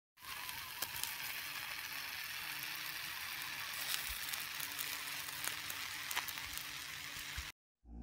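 Steady hiss of a wood-ember fire under birds roasting on sticks, with a few scattered crackles and pops from the fire and the dripping fat. It cuts off suddenly near the end.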